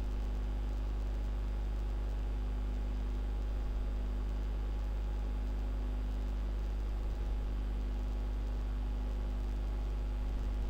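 Steady low hum with faint hiss: constant background noise of the recording, with no other event.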